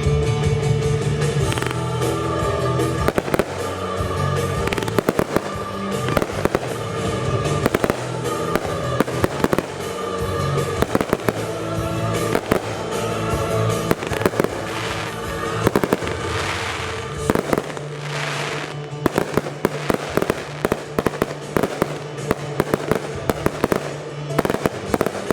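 Consumer fireworks going off in rapid succession, with many bangs and crackles, over music with a steady beat. Two longer hissing sweeps come about two-thirds of the way through.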